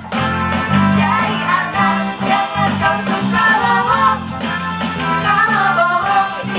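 Live pop band music with singing, an upbeat children's song heard through the hall's loudspeakers.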